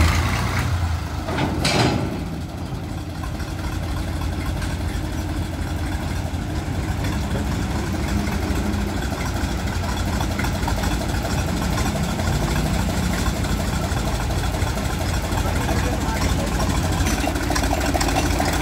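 Tractor engine idling steadily, with a short louder noise about two seconds in.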